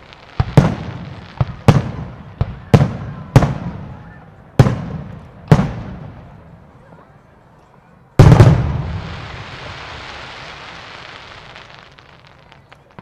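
Fireworks show: a quick run of sharp shell bursts over the first six seconds, then one loud bang about eight seconds in, followed by a few seconds of hiss that slowly fades.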